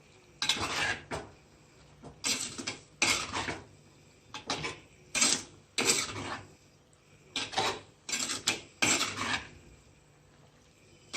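A spoon stirring and scraping in a cooking pot of aviyal just after the curd has gone in. About nine short rasping strokes come at irregular intervals.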